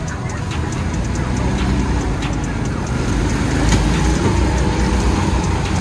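Drift kart driving on a slick indoor track, heard from onboard: a steady low rumble with the motor note rising in pitch about three seconds in.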